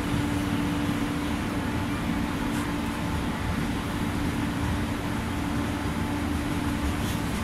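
KTT double-deck passenger coaches rolling slowly past a platform: a steady low rumble of wheels on the track, with a steady hum under it.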